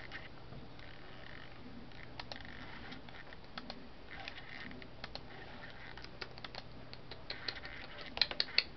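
Computer keyboard keys clicking irregularly under a pet parakeet. The clicks are scattered at first and come quicker near the end.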